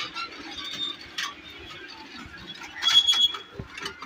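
Ride-on miniature train cars rolling along small-gauge rail track, the wheels giving scattered clicks and clacks, with a brief high squeal about three seconds in.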